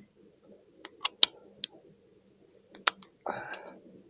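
Small metal parts clinking as clutch cover bolts are taken out with an Allen key: four sharp clicks in the first three seconds, then a short scrape near the end.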